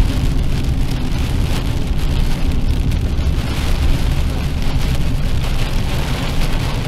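Rain falling on a moving car's windshield and body, over steady low road and tyre rumble, heard inside the cabin.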